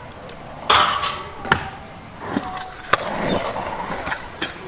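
Stunt scooter wheels rolling on concrete, with several sharp clacks of the scooter hitting and landing on the skatepark surface. The loudest clack comes about a second in.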